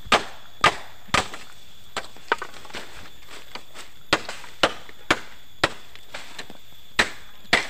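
Machete blade chopping green bamboo: about ten sharp strikes in runs of two or three, roughly half a second apart, with short pauses between runs.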